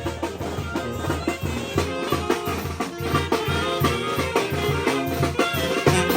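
Mexican village brass band (banda) playing: a brass melody over low bass notes and drums with a steady beat.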